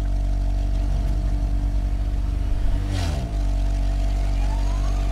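A steady, low engine-like drone from a toy vehicle's sound, its pitch dropping sharply about three seconds in, with a faint rising tone near the end.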